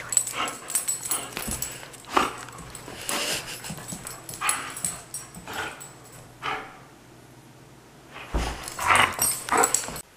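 A dog making short vocal sounds while playing with a toy, coming irregularly, with a quieter spell and then a louder flurry near the end.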